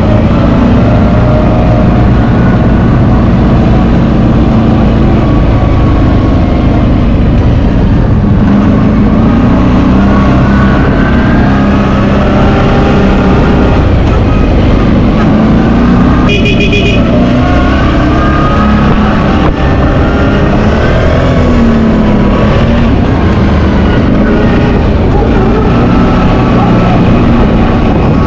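CFMoto X8 ATV's 800 cc V-twin engine running under way, heard from the rider's seat, its pitch rising and falling with the throttle. A short high tone sounds about halfway through.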